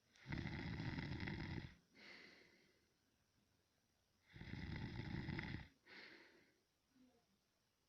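A person snoring while asleep: two long, rough snores about four seconds apart, each followed by a fainter breath.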